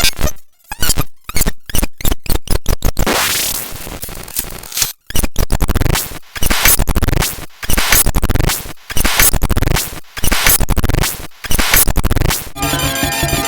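A rapid string of electronic sound effects: sharp hits that come faster and faster, a burst of noise about three seconds in, then a run of rising swoops in quick succession, giving way near the end to a steady looping electronic tune.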